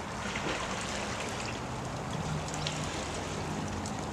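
Steady rain falling, with scattered drips close by. A faint low hum comes in about halfway through.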